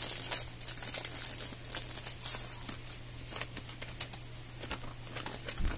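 Paper instruction manual rustling and crinkling as it is handled and unfolded. The rustling is busiest in the first two or three seconds and then thins out.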